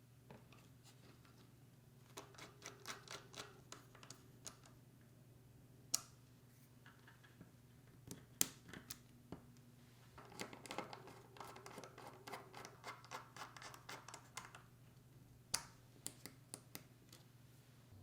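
Hands working small computer parts and tools: two bouts of quick, scratchy rasping and a few sharp, separate clicks, all faint.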